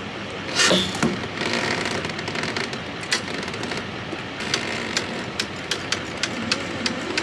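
Boat trailer hand winch being worked: a loud metallic clack about half a second in, then its ratchet clicking about three times a second through the second half.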